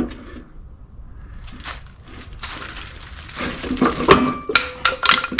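Metal clanking, knocking and scraping as parts of a Ford 9-inch rear end are worked loose. It is quieter at first, and the sharp knocks come thicker and louder in the second half, with a short metallic ring near the end.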